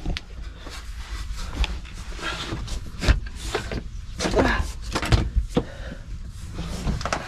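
Irregular clicks, knocks and rustling from hands handling electrical wiring and fittings, with a few brief squeaks, over a steady low rumble.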